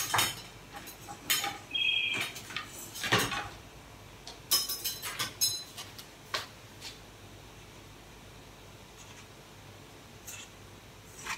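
Kitchen utensils and dishes clattering as they are handled: a quick cluster of knocks and clinks with one brief metallic ring, then a couple of faint clicks near the end.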